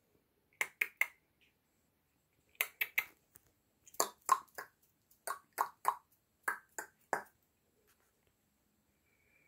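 A run of short, sharp clicks: three quick ones, three more about two seconds later, then about ten in quick succession, as made by a person to catch kittens' attention.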